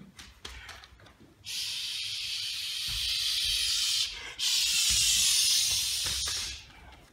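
A person hissing twice, two long even hisses of about two and a half seconds each with a short breath between.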